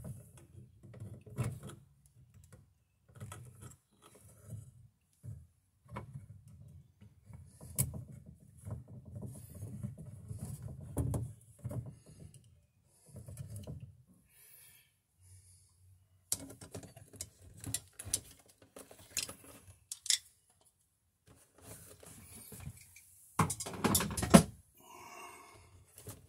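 Stiff 14-gauge Romex copper wires being bent and straightened by hand in a plastic electrical box: irregular small clicks, scrapes and rustling as the wires rub and tap against the box. The loudest scraping comes near the end.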